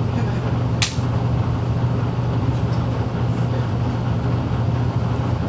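Steady low hum, with a single sharp click about a second in.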